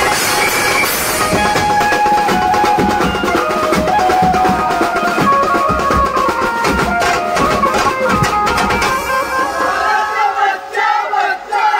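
Live banjo-party band playing Garba music: keyboard melody over tasha and thap drums with bass. The drums drop back near the end.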